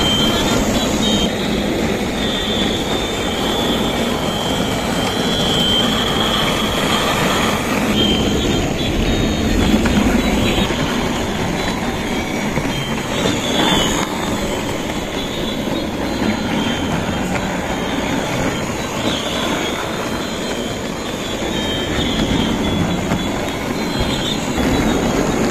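Battery-powered plastic toy trains running on plastic track: the steady noise of their small motors and wheels going round the circuit.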